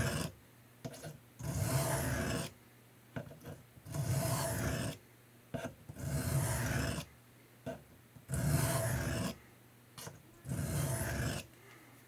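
German Army Knife blade drawn along a diamond sharpening plate in five strokes, each about a second long and roughly two seconds apart.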